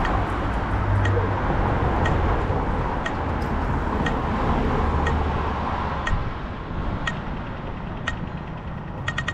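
Pedestrian crossing signal ticking slowly, about once a second, the waiting signal; right at the end it switches to fast ticking, the signal to cross. Under it, a vehicle engine idles in street traffic.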